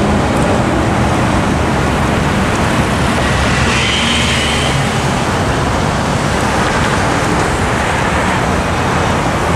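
Road traffic driving across the railroad crossing: cars and pickup trucks passing close by, a steady noise of engines and tyres on pavement, with a brief faint high tone about four seconds in.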